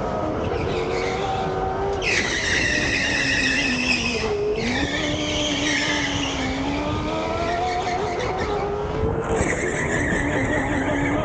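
Biz electric go-kart's motor whining, its pitch rising and falling with speed, with the tyres squealing through corners in three stretches: about two seconds in, just before five seconds, and from about nine seconds in.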